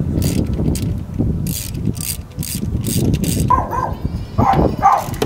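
A socket ratchet clicking in short strokes, about every half second, as the 10 mm coil-pack bolts are loosened, over a steady low rumble. From about three and a half seconds in come a few short, high-pitched yelps.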